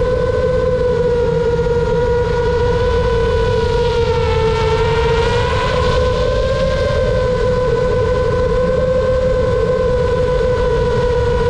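FPV quadcopter's brushless motors and propellers whining steadily as it cruises, over a constant low rush. The whine dips in pitch about four seconds in and climbs back a second or two later as the throttle eases and picks up again.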